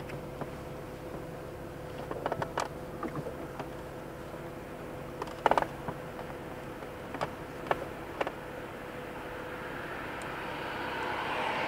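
Car driving slowly, heard from inside the cabin: a steady road and engine hum with scattered sharp clicks and rattles, the loudest cluster about halfway through. A rushing noise builds near the end.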